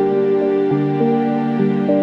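Background music: slow, soft melodic notes over held bass tones.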